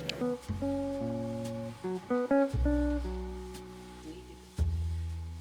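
Background music: acoustic guitar with a bass line, calm chords changing every second or two.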